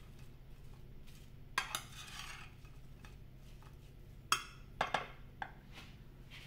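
Metal spoon clinking and scraping against a glass baking dish while tossing air-fried potato and sweet potato cubes: a few separate clinks with quiet gaps, a cluster about a second and a half in and another group in the second half.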